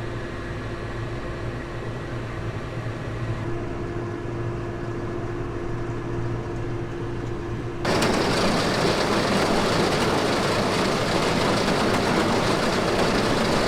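Tractor-driven straw chopper and blower running steadily with a held hum. About eight seconds in, the sound jumps suddenly to a much louder, even rushing noise.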